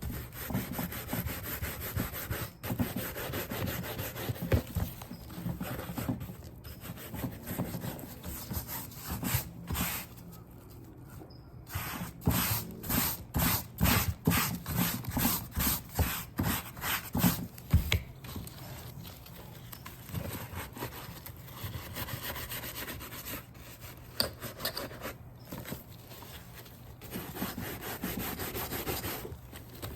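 Horsehair brush stroked back and forth over an alligator-skin handbag, buffing polish into the scale grooves. Repeated scratchy brushing strokes, with a run of quicker, louder, even strokes in the middle.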